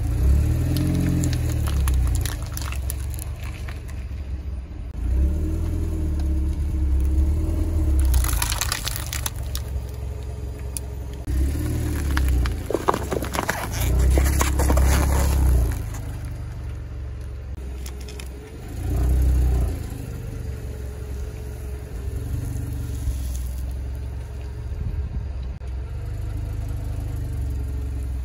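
A car creeping over small objects, its engine and tyre rumble swelling in several short bursts, with crunching and crackling as plastic jelly cups, paper cups and sponges are crushed under the tyre. The crackling is densest about twelve to thirteen seconds in.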